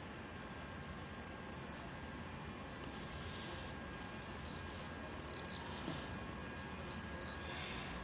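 Small bird chirping over and over in short, high, rising-and-falling notes, about two or three a second, with a brief gap near the middle.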